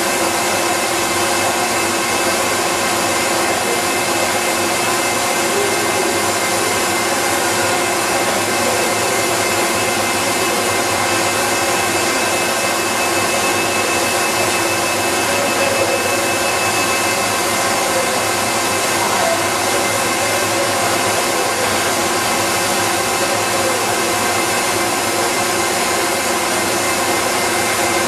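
Steady machinery noise from a processing floor: electric motors on the mixing tanks and other plant running. It is a constant whir with several steady tones in it and never changes.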